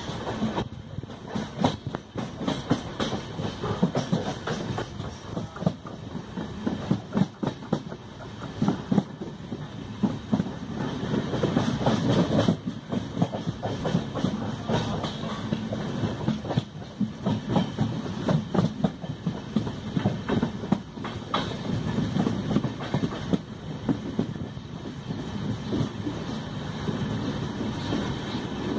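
Wheels of an LHB passenger coach clattering over rail joints and points as an express train runs into a station, heard through an open coach doorway. The wheels make a continuous rumble and rush of noise dotted with irregular clicks and knocks.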